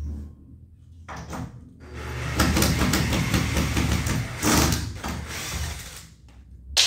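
Cordless drill-driver driving a self-tapping screw through a stretch-ceiling profile into the wooden battens. The motor stops, there are a few clicks, then it runs again with loud rattling for about three seconds, and a sharp click comes near the end.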